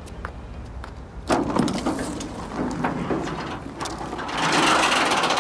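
A rolling metal garage shutter being raised, its slats rattling continuously. The rattle starts about a second in and grows louder near the end.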